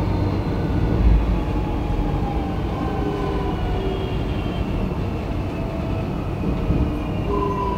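Inside the carriage of a moving X'Trapolis electric train: a steady rumble of wheels on rail with the electric traction motors whining, the whine slowly falling in pitch as the train slows, then starting again from a higher pitch near the end.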